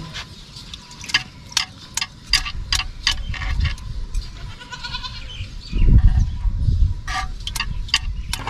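A hand working through buttermilk in a clay pot to gather the churned butter, with irregular sharp clicks and taps against the pot. A short wavering bleat-like animal call comes about five seconds in, and a loud low rumble about six seconds in.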